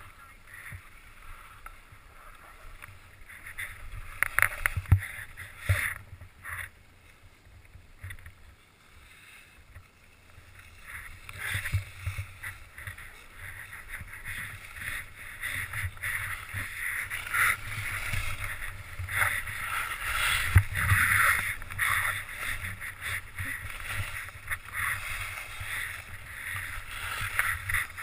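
Skis hissing and scraping over chopped-up packed snow during a downhill run, with bumps and wind on the helmet-mounted GoPro. It eases off for a few seconds about a third of the way in, then grows louder and busier as the skier picks up speed over the rougher snow.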